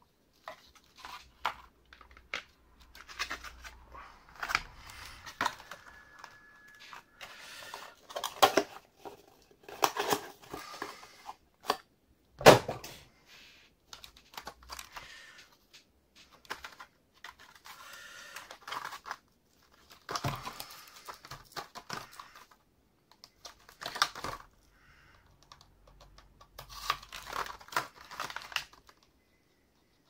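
Cardboard inserts and clear plastic clamshell packaging of PC parts being handled and opened: crinkling, rustling and clicking in irregular bursts, with one sharp knock near the middle.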